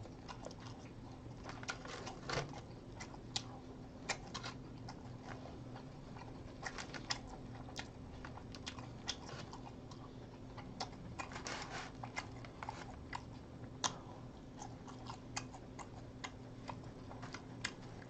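Eating sounds close to the microphone: chewing, with scattered soft irregular clicks and taps of wooden chopsticks picking food from the tray, over a faint steady hum.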